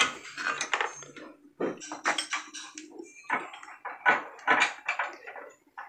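Irregular metallic clinks and taps of hand tools and small metal parts being handled at a workbench, some knocks ringing briefly.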